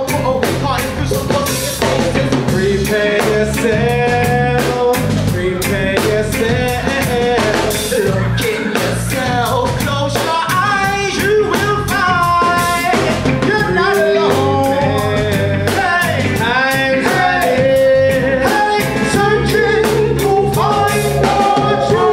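Live reggae band playing, with drum kit and guitars, while vocalists sing and chant over the music into microphones.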